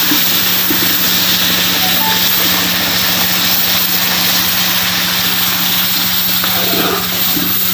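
Hot sugar syrup poured into roasted semolina in a large kadhai, hissing and sizzling loudly as it boils off in a rush of steam.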